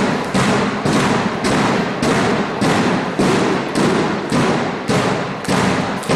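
Steady rhythmic thumping from spectators in a handball hall, just under two beats a second and very even, each beat echoing off the hall, over a murmur of voices.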